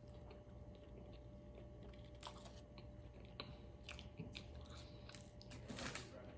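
Faint chewing and biting on a fried fish sandwich, with scattered small crunches of the breading.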